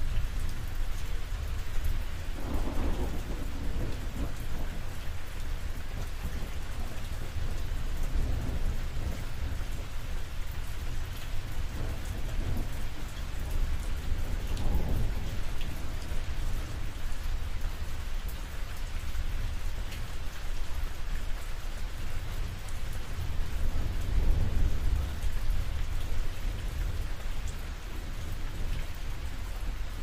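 Rain falling steadily on a roof, individual drops ticking through a dense hiss, over a continuous low rumble of thunder that swells several times.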